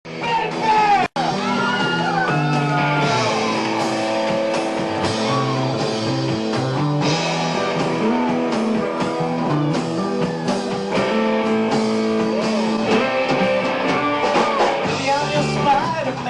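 Rock music led by guitar, with a steady band rhythm. It cuts out for an instant about a second in.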